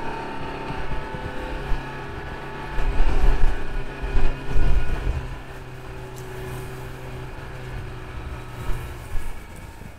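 Can-Am Defender HD10 side-by-side's V-twin engine running at a steady low speed, with heavy low thumps about three to five seconds in and a few smaller ones near the end.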